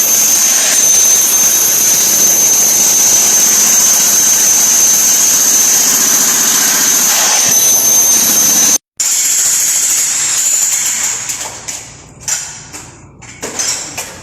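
Electric jackhammer breaking up very hard dirt under a concrete slab. It runs steadily with a piercing high whine for about nine seconds, cuts off, then comes back in short, stop-start bursts.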